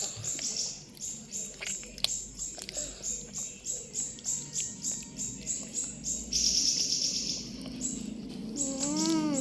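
Close-miked chewing and mouth smacking, a steady rhythm of about three chews a second. A short hummed 'mm' rises and falls near the end.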